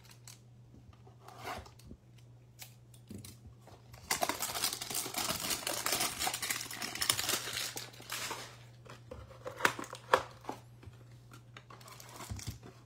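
A hanger box of trading cards being torn open: packaging tearing and crinkling in a dense stretch starting about four seconds in, followed by scattered crinkles and light handling clicks.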